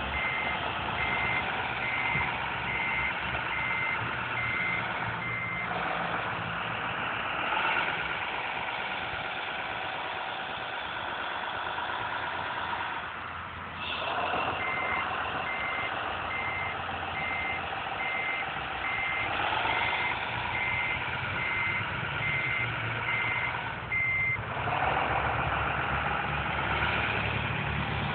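A 1:14.5-scale RC Komatsu wheel loader's sound module plays a running diesel engine with reversing beeps, about two a second, in two stretches: for the first five seconds or so, and again for about ten seconds from around halfway through. Between and after the beeping, the engine sound rises and falls with the throttle.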